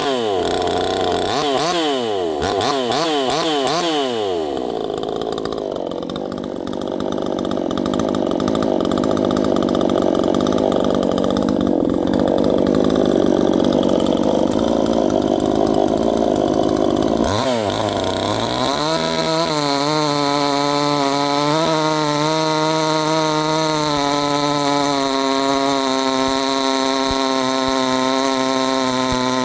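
A 68 cc two-stroke chainsaw revved up and down in quick blips, then held at full throttle with a rougher, noisier sound for about thirteen seconds, typical of cutting into wood under load. It then settles into a steady high-revving run that wavers slightly.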